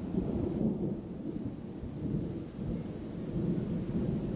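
Thunder rumbling low and continuously, swelling and easing in loudness, with a faint hiss of rain.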